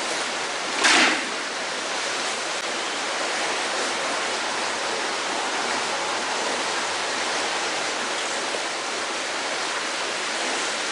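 Steady rush of flowing canal water, with one short splash about a second in.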